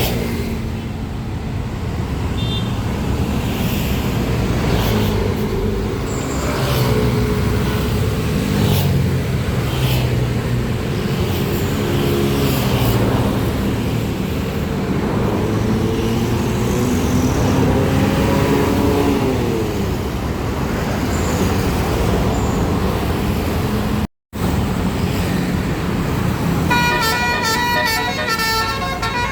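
Road traffic with bus engines running, their pitch rising and falling as vehicles pass. Near the end a multi-note Basuri 'telolet' bus horn starts playing a quick melody of rapidly changing notes.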